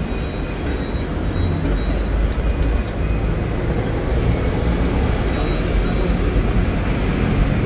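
Hong Kong double-deck tram running, heard from on board: a steady low rumble of the ride with faint high steady tones above it.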